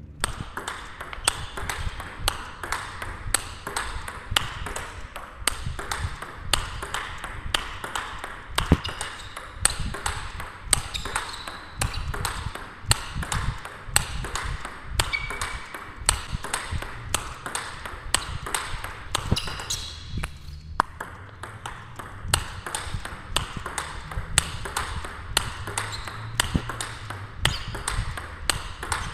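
Table tennis rally: the plastic ball clicking off the rackets' rubber, one of them fitted with Nittaku Genextion, and bouncing on the table in a quick, even rhythm of about three hits a second, with a short break about twenty seconds in.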